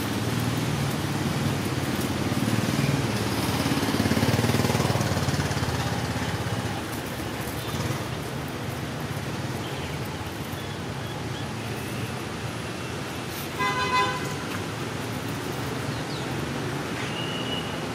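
Street traffic: a motor vehicle rumbles past over the first few seconds, and a vehicle horn toots briefly about fourteen seconds in.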